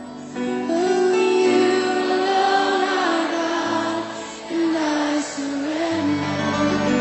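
Gospel song: a woman's voice sings a slow melody in long held notes over instrumental accompaniment.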